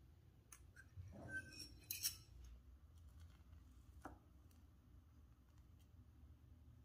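Faint clinks and light scrapes of a utensil on a dish: a short cluster in the first two seconds, then one more clink a couple of seconds later.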